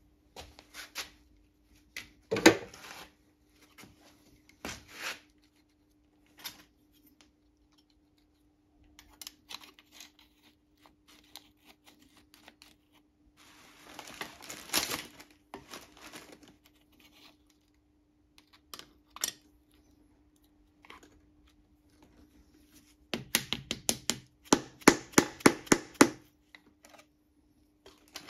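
Metal clicks and scraping as a piston's rings are worked past a homemade ring compressor into the cylinder bore with a pick, then near the end a quick run of about a dozen loud taps, roughly four a second: a hammer tapping the piston down into the bore.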